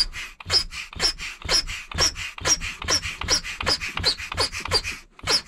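Bellows air pump pressed by hand in quick repeated strokes, about two to three a second, each a puff of rushing air with a short falling squeak, inflating a vinyl inflatable barrel.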